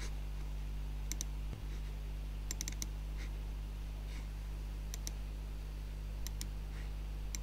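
Computer mouse clicking in quick pairs, a handful of times, over a steady low electrical hum.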